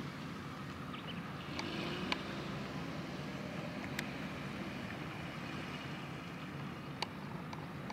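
Steady low mechanical hum of distant machinery or an engine, with wind noise and a few sharp clicks.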